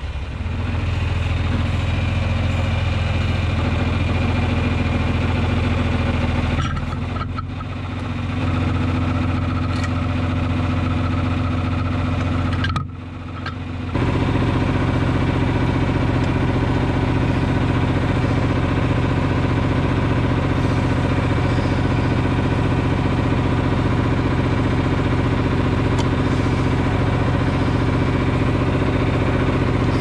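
John Deere 2950 tractor's six-cylinder diesel engine running steadily close by. It dips briefly twice.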